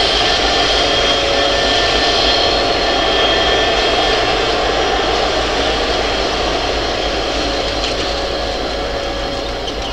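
Canadian Pacific diesel locomotive running as it moves slowly away: a steady engine drone with a high whine held over it, getting slightly quieter toward the end.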